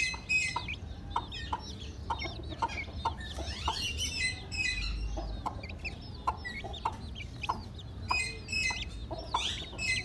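Chickens and young chicks clucking and peeping: many short, high peeps over a run of short, fairly regular clucks.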